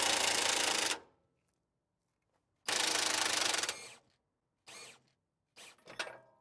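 Impact wrench hammering on a 22 mm socket, backing off the torsion bar adjusting bolt of a 1993 Toyota 4Runner to take the tension off the torsion bar. A burst that stops about a second in, a second burst of about a second a little before the three-second mark, then a few short blips near the end.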